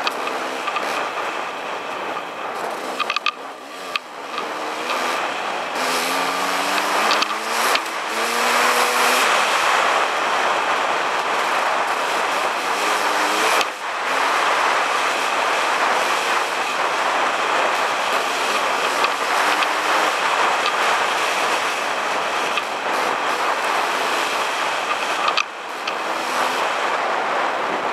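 Dirt bike engine running under way over rough ground, its pitch sweeping up and down with the throttle several times a few seconds in, under a heavy rush of wind on the microphone.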